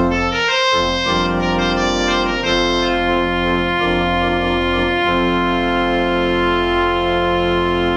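Allen ADC-420 digital church organ playing sustained chords, the melody on the Great voiced with trumpet, krummhorn and 8-foot principal over swell stops and a deep bass. The chords move through the first five seconds, then one chord is held.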